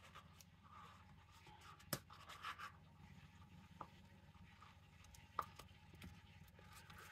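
Near silence: room tone with a faint low hum, a couple of sharp little clicks and some faint scratching.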